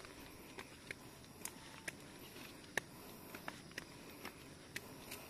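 Rubber flip-flops slapping on concrete steps as people climb a stairway, about two footfalls a second with one louder slap near the middle, over a faint steady hiss.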